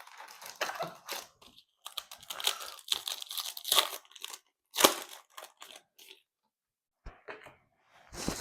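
Foil wrapper of a Panini Prizm football card pack being torn open and crinkled, in irregular papery bursts with one loud sharp burst about five seconds in.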